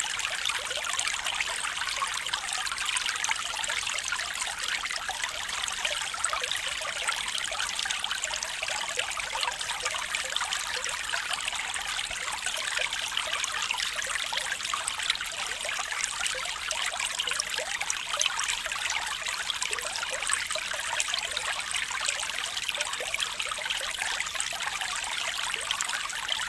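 Water trickling and babbling in a small stream, a steady, even bubbling hiss with many fine splashes.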